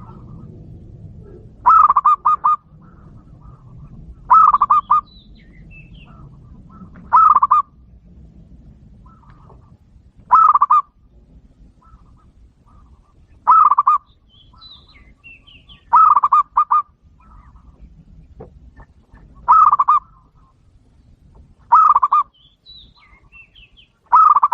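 Zebra doves (perkutut) cooing: each call is a short run of quick staccato notes, repeated about every two to three seconds, nine times. Faint high chirps from smaller birds come between the calls.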